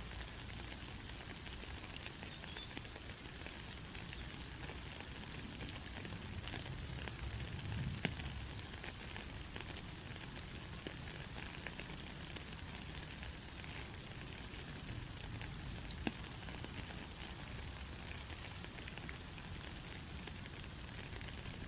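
Steady rain falling, an even hiss with scattered sharp drop ticks, the loudest about eight seconds in and again near sixteen seconds. Faint short high chirps come every few seconds.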